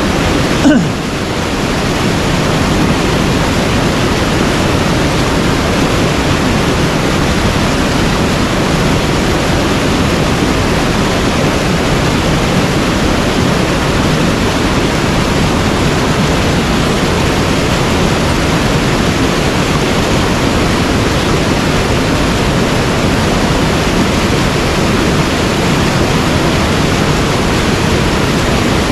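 Mountain headwater stream rushing, a loud, steady wash of running water, with one short knock just under a second in.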